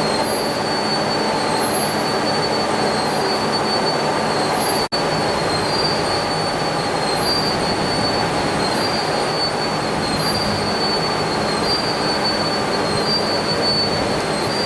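Steel coil slitting line running: a steady, loud metallic noise with a high whine that swells every couple of seconds. The sound cuts out for an instant about five seconds in.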